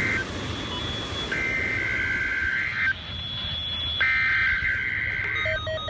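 NOAA Weather Radio SAME digital header for a required weekly test: warbling two-tone data bursts, about a second and a half each with a second's gap between, heard over a radio with hiss. Just before the end a rapid pulsed beeping starts, about four beeps a second.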